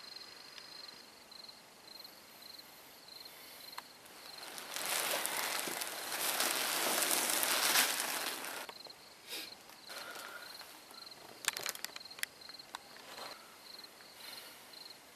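Rustling and handling noise from someone moving about, loudest for a few seconds in the middle, then a few sharp clicks and knocks, over a faint high pulsing chirp.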